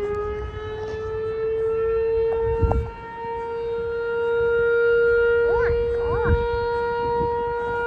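Outdoor tornado warning siren sounding during a test, with one loud wailing tone. Its pitch creeps up slightly at first and then holds steady, growing louder toward the middle and easing a little later.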